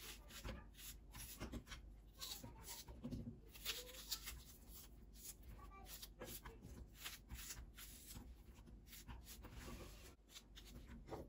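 Faint, irregular crunching of a small knife cutting through a raw onion held in the hand, with onion pieces dropping onto a nonstick frying pan.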